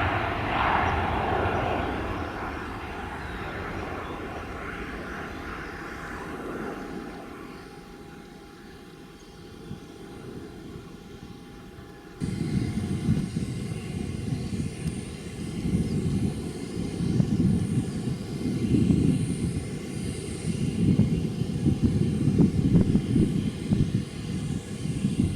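Boeing 777-300 jet engine noise fading away as the airliner departs. About halfway through, an abrupt change brings in a louder, uneven low rumble that rises and falls in gusts.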